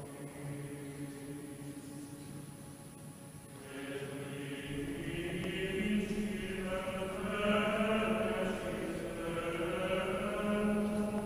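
Slow choral chant, voices singing long held notes, growing fuller and louder about three and a half seconds in.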